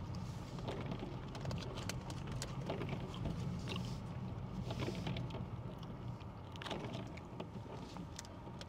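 Rain pattering on a car's roof and windows, heard from inside the cabin as scattered light ticks over a steady low hum.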